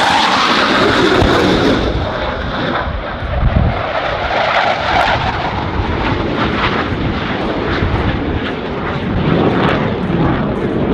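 Boeing C-17 Globemaster III's four turbofan engines running at high power as it climbs away after a tactical takeoff. A loud, steady jet noise whose highest hiss fades about two seconds in, leaving a duller sound.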